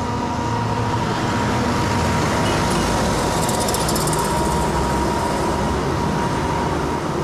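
Stone crusher machine running, a loud, steady, dense rumbling noise with a thin steady whine over it.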